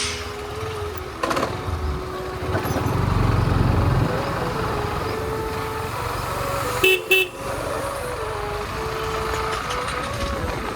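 Traffic and motorcycle riding noise: a steady low rumble that swells about three to four seconds in, and a vehicle horn honking twice in quick succession about seven seconds in. A faint tune of held notes plays underneath.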